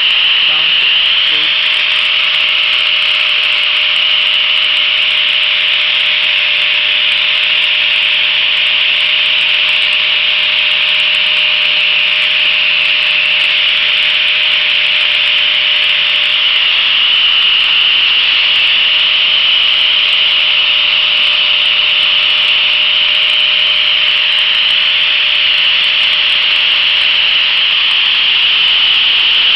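Angle grinder with a sanding disc running steadily while grinding down a purpleheart wood handle: a continuous high grinding sound over a constant motor whine.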